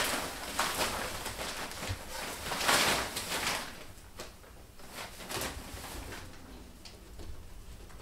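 Fabric cat play tunnel rustling in loud swishes as a cat barrels through it and shoves it across the floor, dying down after about three and a half seconds to a few light taps.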